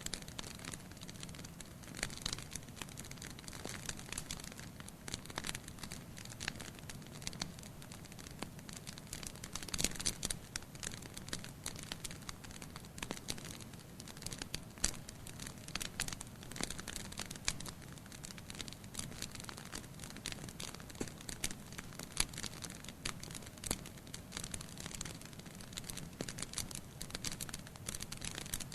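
Wood fire burning in a fireplace: logs crackling with frequent sharp pops over a soft, steady hiss of the flames, with a run of louder pops about ten seconds in.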